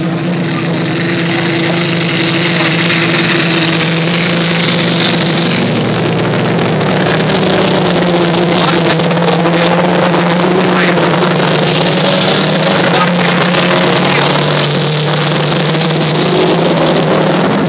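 Engines of several old road cars racing together around a dirt field track, a steady loud drone whose notes waver and shift as the cars accelerate and pass.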